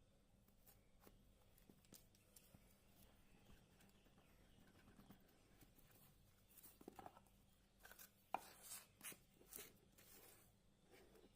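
Faint handling sounds: light clicks, taps and short rustles, a few around the middle and a denser run of them in the second half, over near silence.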